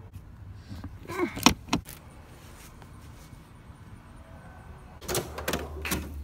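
Clinks and rattles of hand tools and small metal parts being handled: a short clatter about a second in, then the rattle of sockets in a toolbox drawer near the end.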